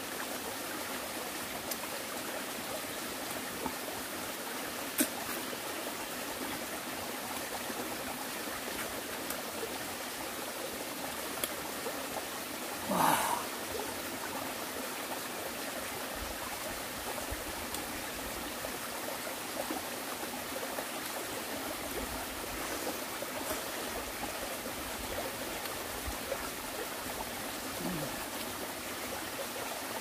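Mountain stream running over rocks, a steady rushing and trickling. One brief louder sound about halfway through.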